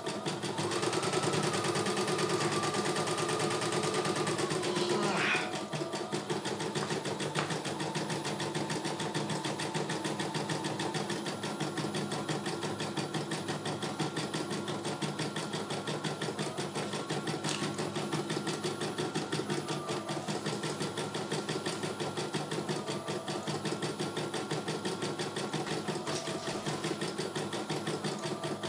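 CNY E900 computerized embroidery machine stitching a design, its needle running in a fast, even rhythm while the hoop carriage moves. It runs louder with a steady whine for the first five seconds, which ends in a short rising sweep.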